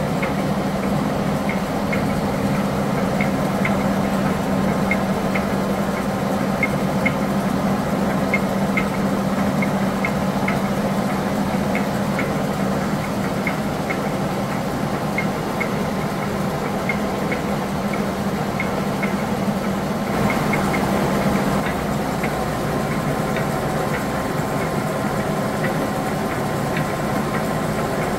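Tos SU-125 heavy-duty engine lathe running under power: a steady mechanical hum with a regular light ticking a few times a second. About two-thirds of the way through, the hum shifts to a deeper rumble and the ticking fades.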